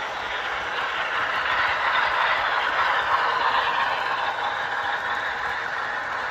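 HO scale model passenger trains running on the layout's track: a steady rolling rush of small wheels and motors. It swells a little a couple of seconds in as a train passes close by, then eases.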